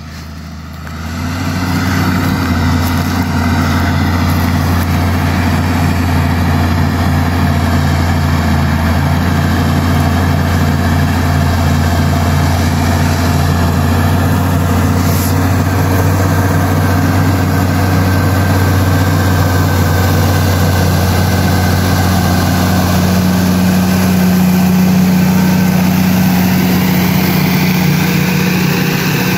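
Steyr 9145 tractor's diesel engine running steadily under load while pulling a mounted plough through the soil. The sound fades in over the first second or two, then holds steady, getting a little fuller in the last third.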